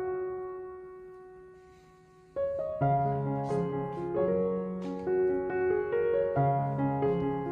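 Background solo piano music. A held chord fades away over the first two seconds, then the piano comes back in with a flowing pattern of notes over a low bass line.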